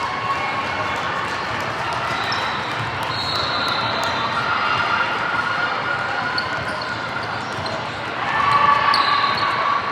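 Basketball game play in a gym: a ball bouncing on the hardwood under a steady mix of players' and spectators' voices, which grows louder for about a second near the end.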